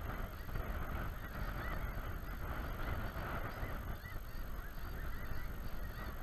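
A large flock of snow geese calling overhead: a dense, continuous chorus of many overlapping high honks.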